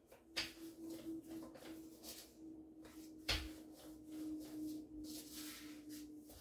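A rolling pin rolling dough thin on a floured wooden board: soft repeated rolling strokes, with one knock of the pin on the board about three seconds in. A steady faint hum runs underneath.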